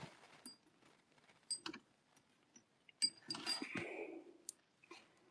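Faint clicks of small metal jewellery pieces and tweezers being handled as freshly pickled pieces are dried, with a brief rustle about three seconds in.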